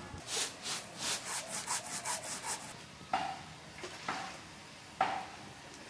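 Quick scraping strokes, about four a second, for the first two and a half seconds. Then three sharp ringing knocks about a second apart: a mug knocking against a metal bowl as water is scooped.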